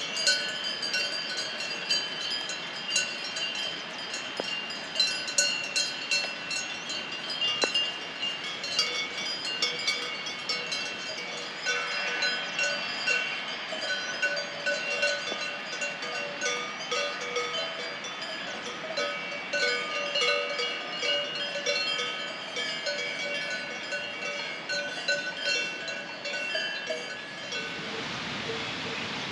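Many cowbells clanking irregularly and overlapping at several different pitches, as from a herd of grazing cattle. Shortly before the end this gives way abruptly to a steady rushing noise.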